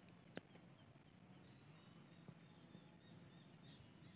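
Near silence: faint open-air ambience with scattered, faint, short high chirps from distant birds, and a single click about half a second in.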